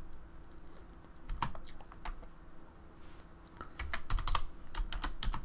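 Typing on a computer keyboard: a few scattered keystrokes, then rapid continuous typing from about three and a half seconds in.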